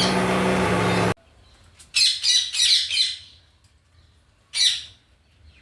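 Electric mixer grinder running as it grinds ginger and chillies, cutting off suddenly about a second in. Then a bird squawks in a quick run of calls, and once more near the end.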